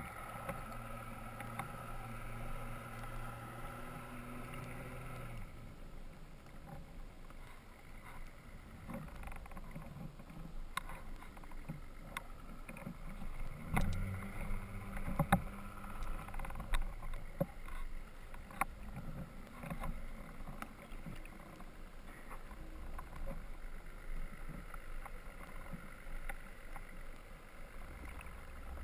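Underwater sound with a boat's motor hum for roughly the first five seconds, then a water wash with scattered sharp clicks, the hum briefly returning near the middle.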